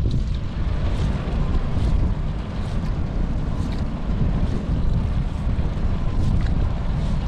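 Steady low rumble of wind on the microphone over a small boat's motor running, with a few faint clicks.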